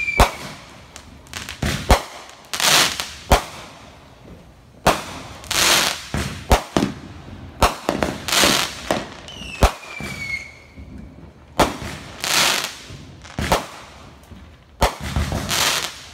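Aerial fireworks going off in quick succession: a string of sharp bangs and longer hissing bursts, with a descending whistle about ten seconds in.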